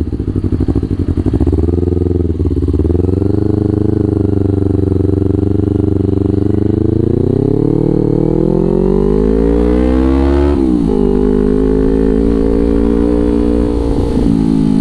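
Kawasaki Ninja 250 FI parallel-twin engine through a Villan New ZX1 aftermarket exhaust, under way. Its pitch rises steadily for several seconds under acceleration, falls sharply at an upshift about ten seconds in, then pulls on again.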